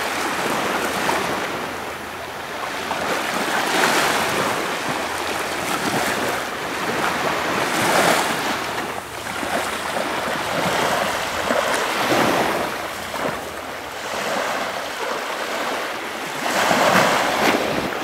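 Small sea waves washing up onto a sandy beach, the surf noise swelling and fading every few seconds.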